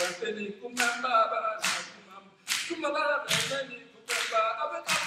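A man sings unaccompanied in a steady rhythm, clapping his hands on the beat, a sharp clap a little under once a second.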